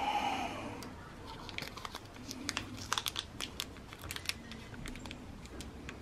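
Small plastic baggie crinkling softly in the fingers as it is handled on the end of a clutch cable: scattered, irregular small clicks and rustles.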